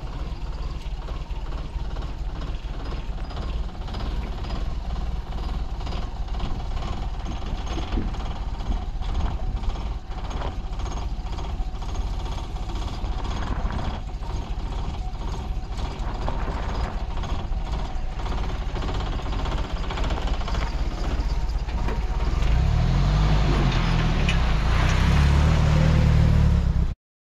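Jeep Wrangler YJ's engine running at low speed as the Jeep creeps down a steep two-foot sandy drop into a wash, over a steady low rumble. It grows louder near the end as the Jeep drives up close past, then cuts off suddenly.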